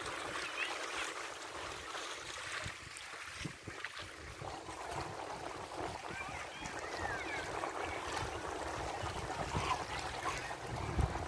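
Shoreline ambience of the bay: a steady wash of small waves on the shore, with scattered faint high calls rising and falling over it, most near the start, in the middle and near the end.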